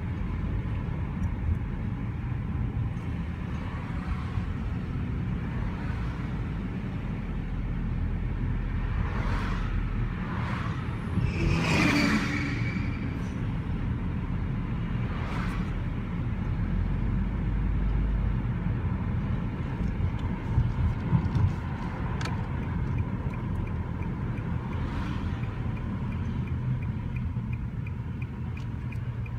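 Car driving along: a steady low rumble of engine and road noise, with several passing whooshes, the loudest about twelve seconds in.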